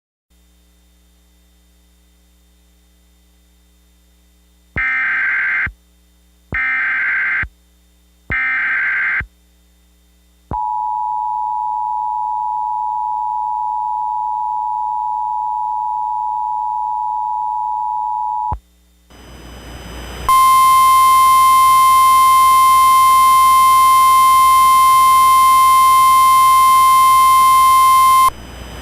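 Emergency Alert System tones: three short bursts of SAME header data, then the two-tone attention signal held for about eight seconds. After a brief rise of static, a single steady tone follows for about eight more seconds.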